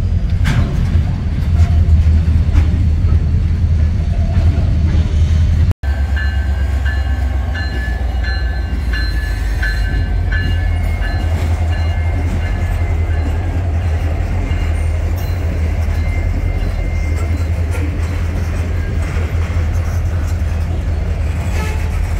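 Freight train of covered hopper cars rolling past with a heavy steady rumble. After a cut, CSX diesel locomotives move through the yard with a deep engine rumble, and a locomotive bell rings about one and a half strokes a second for several seconds.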